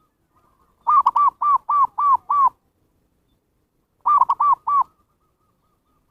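Zebra dove (perkutut) singing its staccato cooing song: a quick run of about seven short, arched coos, then after a pause a shorter run of four. This is a lure call used to attract wild zebra doves.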